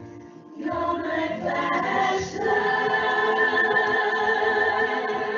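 A choir singing: the voices come in about half a second in and settle into a long held chord from about two and a half seconds.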